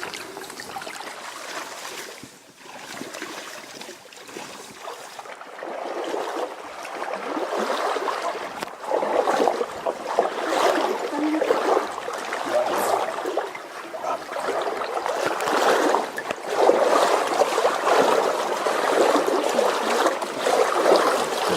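Stream water rushing and splashing. It surges unevenly and gets louder after about eight seconds.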